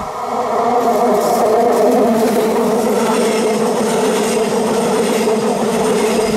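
A Stadler FLIRT ETR 170 electric multiple unit passing close by, its traction equipment giving a steady hum of several tones over the rumble of wheels on rail. It grows louder over the first second, then holds steady as the cars go past.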